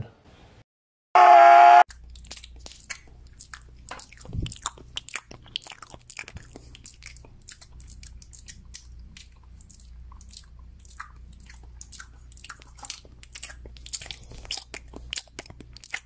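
A sloth chewing carrot sticks: a long run of small crunchy bites over a low hum. About a second in there is a short, loud pitched tone, the loudest thing here.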